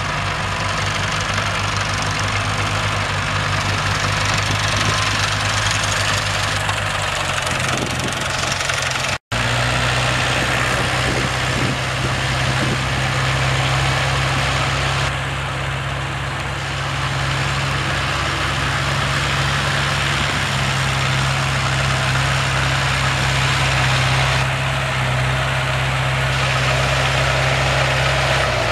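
Kubota L345 tractor's V1501 four-cylinder diesel engine running steadily as the tractor drives, a continuous low drone. The sound breaks off for an instant about nine seconds in, and the engine note is a little higher afterwards.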